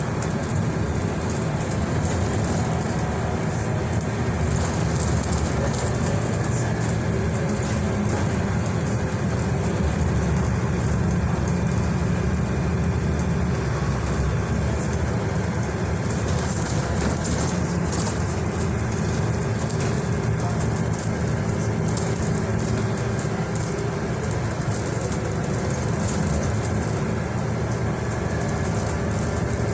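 Interior of a Stagecoach bus on the move: steady engine drone and road noise, with a few light clicks and rattles from the cabin.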